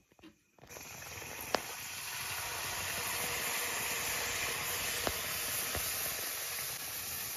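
Batter deep-frying in hot oil in an iron wok: a steady sizzle that starts suddenly less than a second in, with a few sharp clicks.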